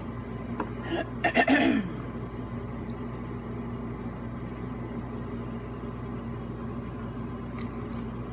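Mouth sounds of a person eating fried chicken: a short burst about a second in that ends in a brief voice sound falling in pitch, over a steady low room hum.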